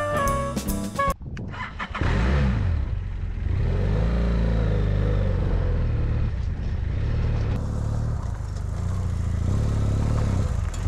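Brief music ends about a second in. About two seconds in, a BMW F800GS parallel-twin motorcycle engine comes in suddenly and keeps running, its pitch rising and falling as the bike is ridden slowly over rough ground.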